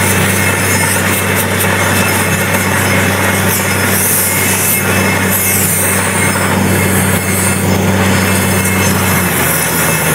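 Borewell drilling rig running while it drills: a loud, steady engine drone under a harsh, hissing noise from the drilling as it flushes muddy slurry out of the bore. The engine note drops slightly near the end.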